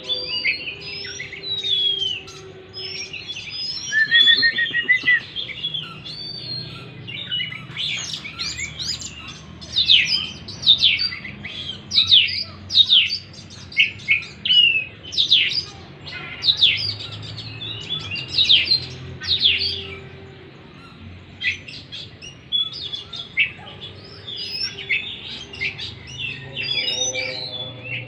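Oriental magpie-robin (kacer) singing a long, varied song of whistled glides and scratchy chatter, with a run of fast, sharp down-slurred notes in the middle. It is a lure song, played to coax a silent, stressed kacer into singing.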